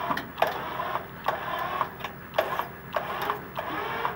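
A skid steer being dragged onto a trailer by a winch and cable: a rhythmic clunk and grind, a little under two strokes a second.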